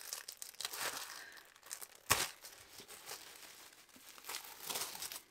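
Tissue paper rustling and crinkling as it is unfolded by hand, with one sharp rip about two seconds in.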